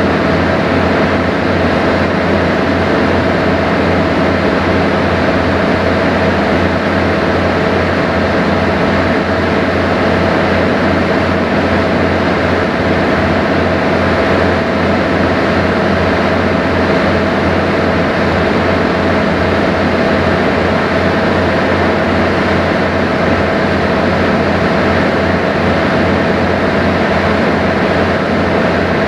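Sightseeing boat's engine running steadily underway, heard on board as an unchanging drone with a fixed low hum.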